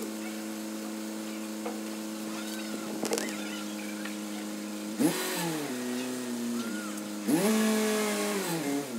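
Crane's engine running steadily, with two revs about five and seven seconds in where the pitch rises, holds and falls back.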